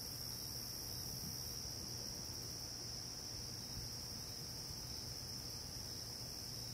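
Crickets trilling in a steady, unbroken high-pitched chorus.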